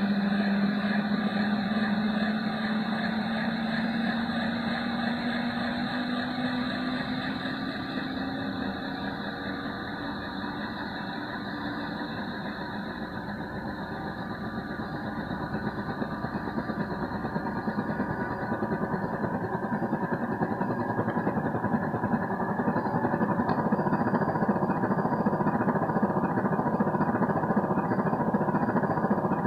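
RC model sound module playing a UH-1 Huey helicopter sound through a small loudspeaker: engine and rotor noise with a tone that rises in pitch over the first several seconds. The sound dips slightly in level midway and builds back up near the end.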